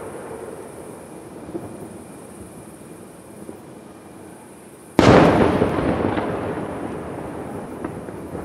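A single firework shell going off with one sudden loud boom about five seconds in, its echo rolling away over the next few seconds, over a low steady background.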